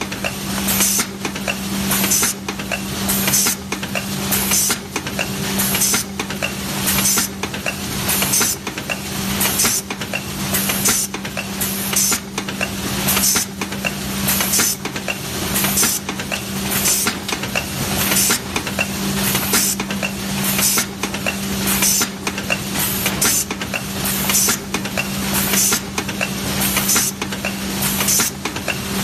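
Automatic aluminium foil container press running: short hisses of compressed air repeat about one to two a second, over a steady machine hum.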